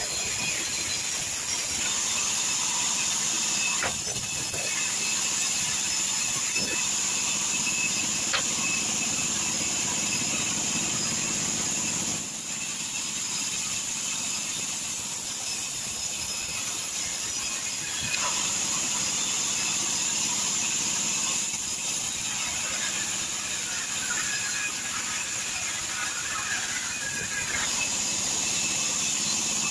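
Sawmill band saw running and ripping timber boards, a steady mechanical noise with a high whine, dipping slightly in level twice.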